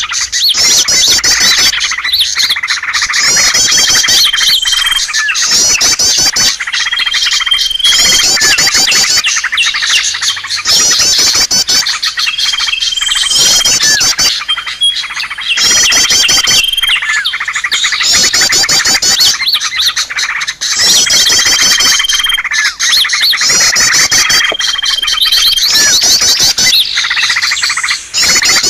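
Bird-lure recording: many small songbirds chirping and trilling over one another in a dense, continuous chorus. A short, level whistle recurs every two to three seconds.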